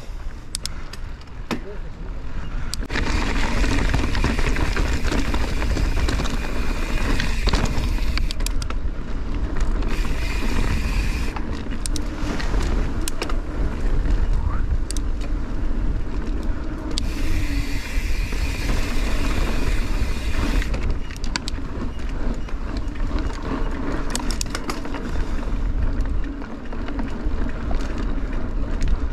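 Mountain bike ridden at speed over a rocky trail, its tyres and frame clattering and rattling over the stones, with wind rushing over the microphone.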